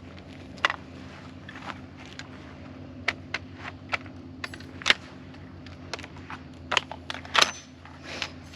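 A series of irregular sharp clicks and clacks, roughly one or two a second, over a steady low hum.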